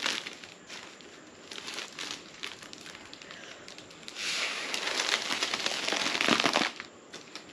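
Foil letter balloon crinkling and crackling as it is handled, then, about four seconds in, one long breath blown through a plastic straw into the balloon's valve: a steady rush of air lasting about two and a half seconds as the foil balloon fills.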